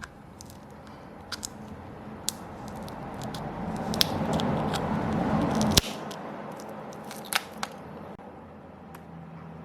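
Small hand tools clicking and tapping against a phone's frame while its battery is pried loose. A scraping, rustling noise builds over a few seconds and stops suddenly with a sharp click about six seconds in.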